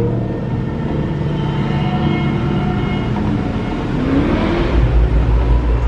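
Outdoor volcano-show soundtrack: sustained droning tones over a rumble, with a deep low rumble swelling in about five seconds in.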